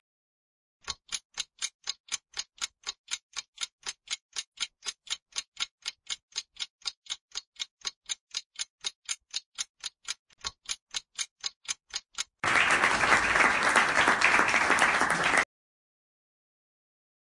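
Clock-ticking sound effect for a quiz countdown timer, about four ticks a second, which stops and is followed by about three seconds of applause sound effect.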